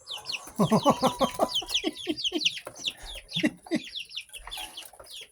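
A flock of young chickens (White Leghorn, Speckled Sussex, Buff Orpington and Easter Egger) peeping and clucking excitedly as they scramble to snatch a caught carpenter bee from one another. Short, high-pitched, falling peeps come throughout, with quick runs of lower chirps about a second in and again around three seconds.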